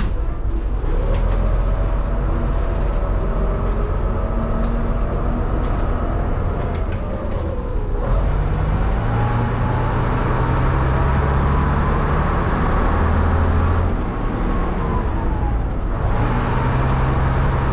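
Leyland 680 11.1-litre diesel of a Leyland Leopard bus running under load, its revs climbing and then dropping back with gear changes of the four-speed pneumo-cyclic semi-automatic gearbox about eight seconds in and again about fourteen seconds in. A faint high-pitched beep repeats through the first twelve seconds or so.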